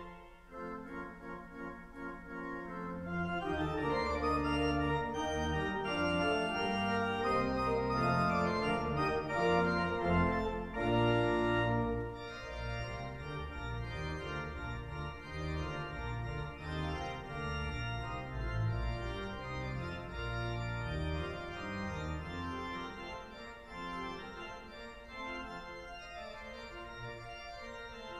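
Pipe organ of Leeds Minster, a large four-manual instrument, playing sustained chords over a pedal bass line. It swells fuller and louder about three seconds in, is loudest around ten to twelve seconds in, then drops back a little.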